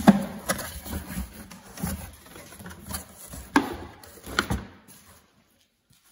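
Cardboard shipping box being opened by hand: flaps pulled apart and folded back with scraping rustles and several sharp knocks of cardboard, then the sound drops away almost to nothing about a second before the end.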